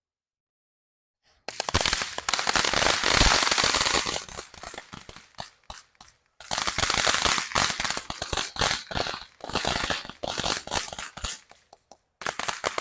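Brothers Tag consumer firework going off with dense, rapid crackling, a fast run of sharp pops. It starts about a second and a half in and thins out briefly twice before picking up again.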